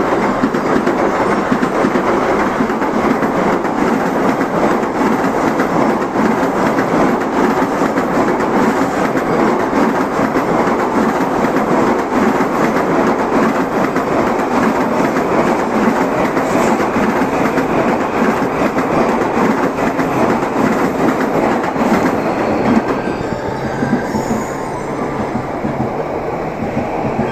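Tokaido Shinkansen N700-series trains passing, a loud, steady noise of wheels on rails that eases off a few seconds before the end.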